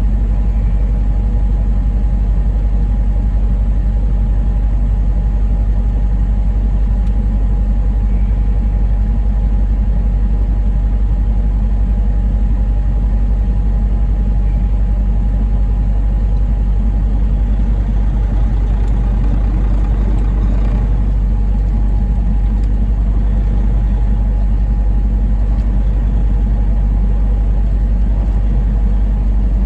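Semi truck's diesel engine running steadily, a deep even rumble with a faint steady high tone over it.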